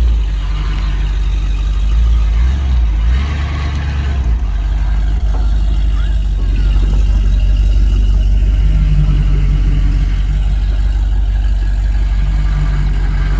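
1976 Dodge D200 pickup's engine running as the truck is driven, a steady, loud low rumble.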